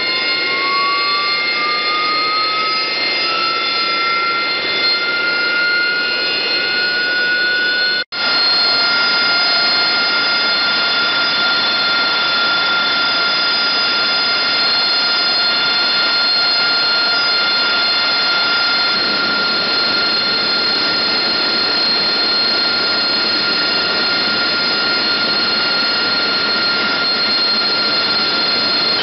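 AV-8B Harrier's Pegasus turbofan engine whining, its pitch rising steadily as it spools up over the first eight seconds. After a sudden break about eight seconds in, the engine runs on at a steady high whine.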